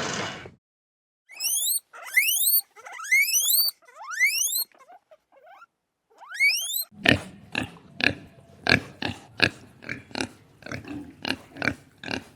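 Animal calls: a run of short, steeply rising chirps, then a rhythmic series of short grunts, about three a second.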